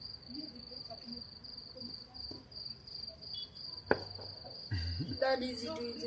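Crickets chirping in a steady, fast-pulsing trill, with one sharp crack of a distant firecracker about four seconds in.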